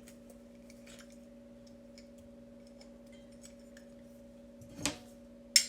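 Faint kitchen handling over a steady low hum: small scattered clicks, then a short knock near the end and a sharp click just after it.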